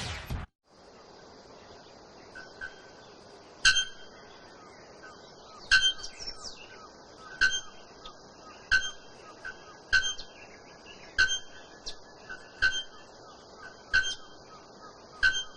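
Bare-throated bellbird giving its blacksmith call: single sharp, metallic, ringing notes like a hammer striking an anvil. The first comes about four seconds in, and they then repeat roughly every second and a quarter.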